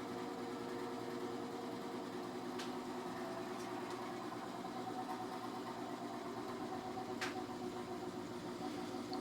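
A machine unit running with a steady mechanical hum of several layered tones, with sharp ticks about two and a half and seven seconds in. It is part of an on-off cycle of noises that the owner cannot explain.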